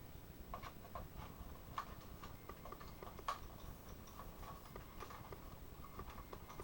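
Scattered light clicks and taps of hard plastic toy parts being handled, irregular, with one sharper click about three seconds in.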